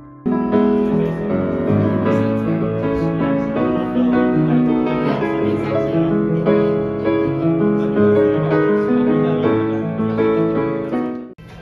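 Grand piano being played: a flowing piece of sustained chords and melody that starts suddenly just after the start and cuts off abruptly near the end.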